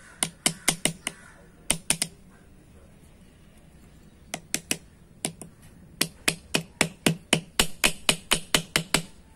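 Small hammer tapping a rivet against a steel rivet post to fix a new lining to a brake shoe: sharp metal-on-metal taps, a quick run of about five near the start, a few scattered taps, then an even run of about fourteen taps, roughly four a second, over the last three seconds.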